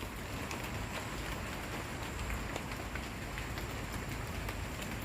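Steady light drizzle falling, an even hiss sprinkled with many separate small drop ticks.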